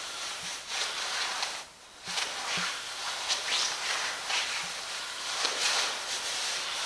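Footsteps scuffing and shuffling on a gritty floor, irregular strokes about once or twice a second, over a steady high hiss.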